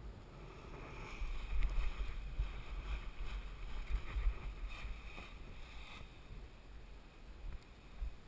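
Wind buffeting the microphone while an Ozone Firefly speed wing's fabric canopy is pulled up overhead and settles back down. The canopy rustles and flaps, loudest from about a second in until about six seconds in, when it comes down.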